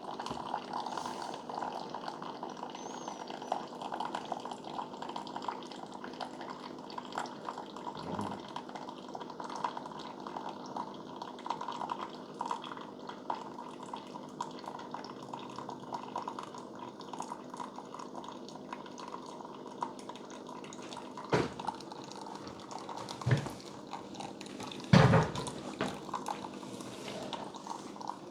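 Keurig K-Supreme Plus Smart single-serve coffee maker brewing a K-Cup on the rich strength setting: coffee dripping and streaming into the cup with a steady bubbly trickle. A few louder short thumps come near the end.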